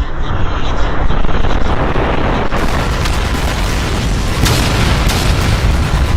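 Layered battle sound effects: a continuous deep explosive rumble with sharp blasts and shots cutting through, the sharpest of them in the second half.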